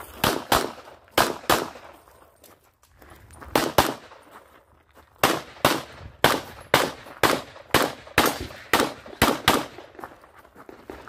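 Handgun shots fired in quick pairs, two to a target, in a practical shooting stage. A few pairs come in the first two seconds, then a pause, then a fast run of pairs through the second half.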